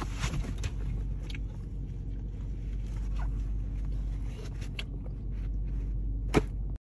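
Steady low hum inside a parked car, with a few faint clicks from handling and one sharper click near the end, after which the sound cuts off abruptly.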